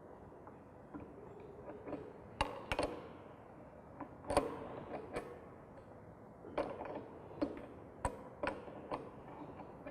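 Irregular light clicks and knocks, about nine of them, as plumbing parts and tools are handled and set down.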